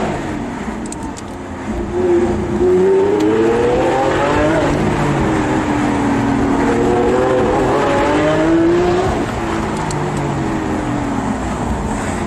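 Lamborghini engine accelerating: the revs climb twice, each time dropping back, and fall away near the end as it eases off.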